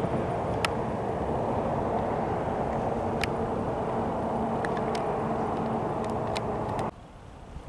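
Steady engine noise with a low hum and a few sharp clicks, cutting off suddenly about seven seconds in.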